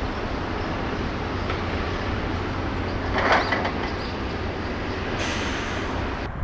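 Steady low vehicle rumble, with a short louder clatter about three seconds in and a brief hiss near the end before the sound cuts off suddenly.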